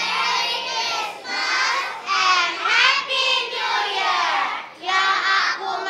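A group of young children singing together in chorus, in short phrases with brief breaks.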